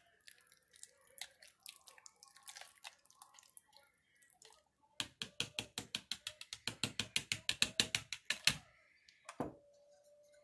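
Spoon working yogurt in a small plastic cup: a few scattered light clicks, then about halfway in a fast, even run of clicks about nine a second that grows louder, ending in two sharper knocks. A faint steady tone follows near the end.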